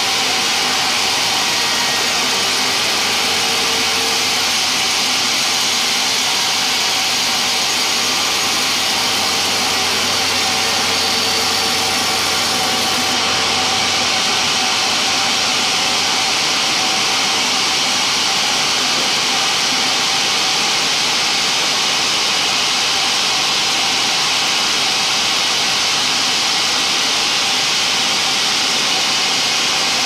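Sawmill band saw running and cutting lengthwise through a log, a loud, steady noise. A faint low hum underneath drops away about halfway through.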